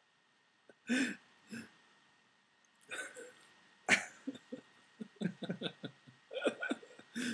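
A person coughing and clearing their throat in short separate bursts, then a quicker run of short throaty vocal sounds near the end.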